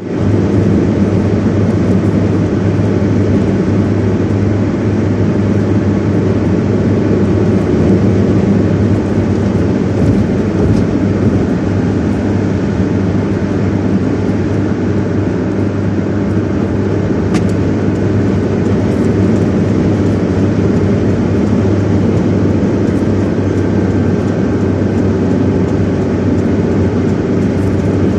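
Steady low rumble of a moving car, engine and road noise, with a strong hum near the bottom.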